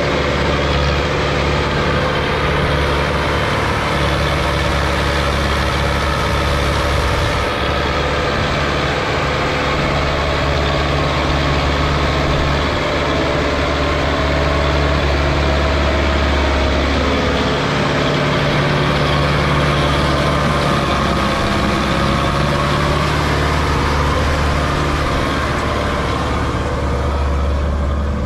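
Sonalika DI 750 tractor's diesel engine running steadily under load while hauling a trolley full of earth, a loud low drone that shifts slightly in pitch twice.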